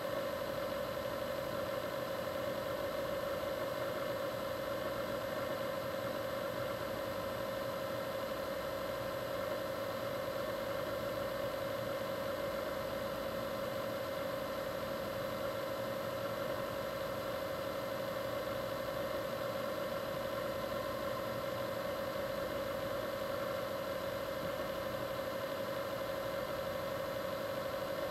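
A steady, unchanging mechanical hum with one strong mid-pitched drone, level throughout.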